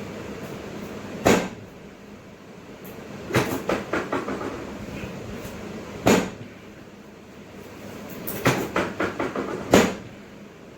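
Sharp knocks and clacks in a repeating pattern: a single loud clack, then a quick rattling run of about half a dozen knocks. This happens twice, and a last single clack comes near the end.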